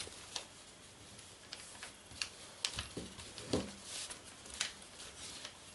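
A sheet of silver and gold kraft paper being folded and creased by hand: scattered small crackles and taps of the paper, with a few sharper ones around the middle.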